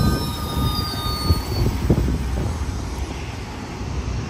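Metra bilevel passenger cars rolling past: a steady low rumble of wheels on rail with a few sharp knocks, and a faint high wheel squeal that fades out about a second and a half in.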